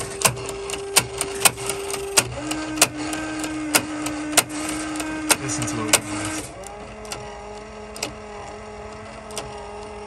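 Power liftgate latch actuator running with a steady whirr and repeated sharp clicks, about two a second, thinning out after about six seconds while the whirr drops in pitch. This clicking is the sign of the failing latch actuator that keeps the liftgate from opening at times.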